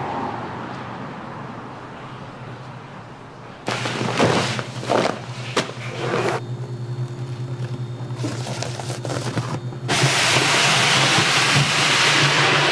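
Crinkling and rustling of a large plastic rice bag being handled on a steel worktable, over a steady low machine hum. About ten seconds in, a loud steady hiss starts as the rice is tipped from the bag into a stainless-steel hopper.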